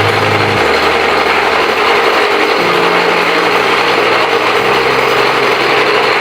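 Pellet mill running under its 9 HP Yamakoyo E9 small engine: a loud, steady mechanical clatter over the engine's hum, whose note steps to a different pitch about every two seconds.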